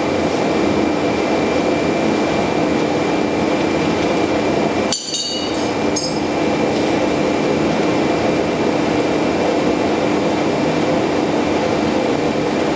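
ABAC 7.5 rotary screw air compressor running with a steady hum, and a short metallic clink about five seconds in.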